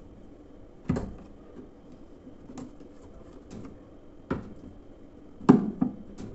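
Seven irregular sharp knocks and clunks, with a double knock near the end that is the loudest: washing-machine tub parts being handled and pressed into place while a new shaft seal is fitted.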